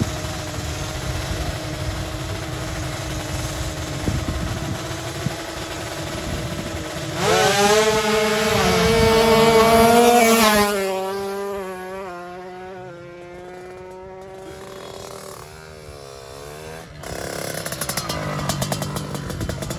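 Tuned two-stroke 155 cc sport motorcycle (Ninja-type) running at the drag start line, then launching about seven seconds in: the engine note jumps louder and climbs in pitch, and it fades as the bike pulls away down the strip. Another engine comes up near the end.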